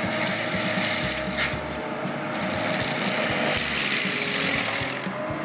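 PrimeTech PT 600 forestry machine working through trees with its IMG 1306 attachment: a steady heavy engine and machine noise with a constant whine.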